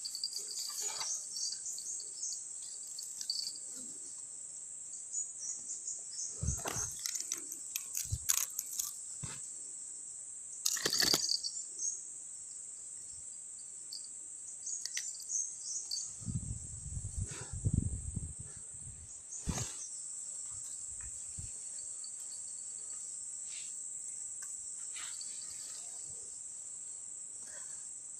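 A steady high-pitched drone of insects, with scattered knocks and rustles of handling close by and a louder low rustling rumble a little past halfway.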